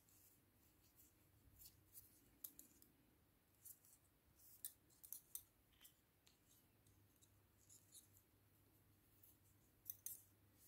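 Faint, irregular clicking of metal double-pointed knitting needles tapping against each other as stitches are worked on a set of five needles.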